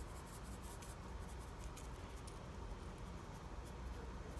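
A seasoning shaker shaken over pieces of fish: faint, scattered soft ticks of grains and shaker, thickest in the first two seconds or so.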